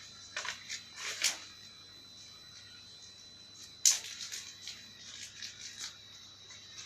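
Unboxing handling noises: small packaging crinkling and rustling in irregular bursts, with a sharp click about four seconds in. A faint steady high whine runs underneath.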